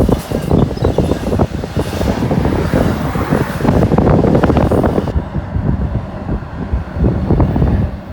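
Intermodal freight train cars rolling past, their steel wheels clattering and clicking irregularly on the rails.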